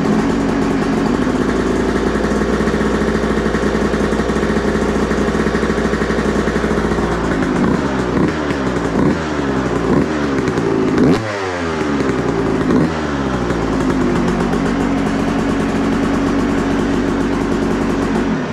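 Yamaha YZ125 two-stroke dirt bike engine running just after a kick start. It idles steadily, then about halfway through gets a run of quick throttle blips, each rising and falling in pitch, before settling back to a steady idle.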